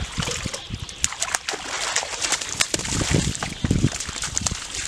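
Bare feet splashing and sloshing through shallow muddy water, with many short sharp splashes and a few heavier low thuds of footfalls.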